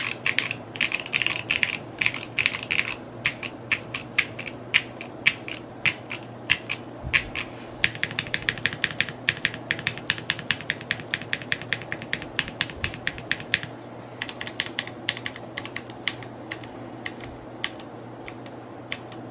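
Typing on a Neo65 Cu mechanical keyboard: a quick, steady run of keystroke clacks that thins out to a few scattered keypresses over the last few seconds.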